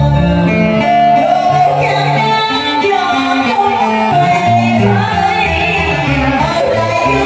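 A woman singing a slow Vietnamese funeral song (ca cúng) into a microphone, with sustained, sliding melodic notes over instrumental accompaniment.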